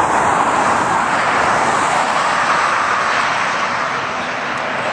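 Highway traffic going by: a steady rush of tyre and engine noise that swells as a car passes about two seconds in.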